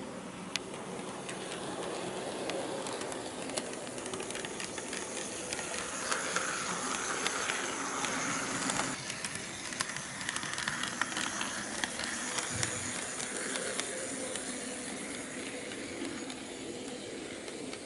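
KATO HO-gauge EF81 electric locomotive model running on sectional track: a steady whirr of motor and wheels with frequent small clicks, loudest about halfway through as it passes close by.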